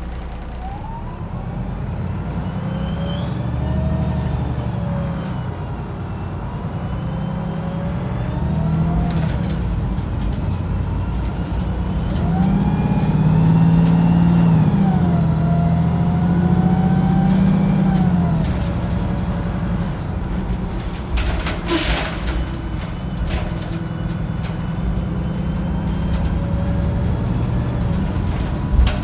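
Wright Pulsar 2 single-deck bus heard from inside while on the move: the engine and driveline rise and fall in pitch over and over as the bus pulls away and shifts gear. A little over two-thirds of the way through comes a short, sharp noisy burst, with scattered clicks and rattles around it.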